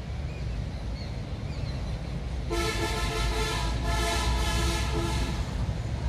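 A vehicle horn sounding two steady pitches together for nearly three seconds, starting about halfway in and briefly dipping once, over a steady low rumble of background traffic or wind.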